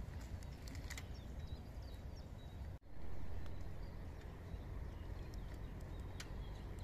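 Knife tapping a few times on a wooden cutting board while a mackerel is cut, over a steady low rumble of outdoor wind and faint bird chirps. The sound drops out for an instant and picks up again about three seconds in.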